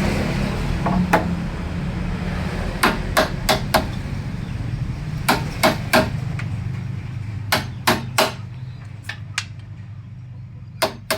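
Hammer blows on a wooden frame, struck in quick groups of three or four, the groups repeating every two to three seconds.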